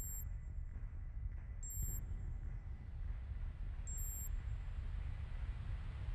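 Electronic ambient score: two short, high, pure pings about two seconds apart over a steady low rumble, with a hiss that swells from about halfway.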